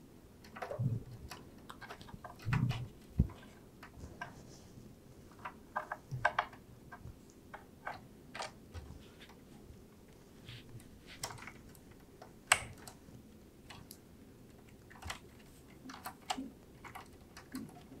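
Irregular clicks, taps and rustling from PCIe power cables and their plastic connectors being handled and fitted to graphics cards, with a few sharper knocks.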